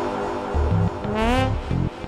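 Electronic music for trombone and electric trombone: short low notes start and stop, and a pitched note slides about a second and a quarter in.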